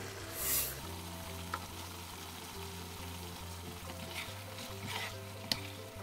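Spicy pork stir-fry (jeyuk-bokkeum) sizzling in a frying pan while it is stirred, with a short loud hiss about half a second in. Scraping strokes follow, and near the end there is a sharp clack of the utensil against the pan.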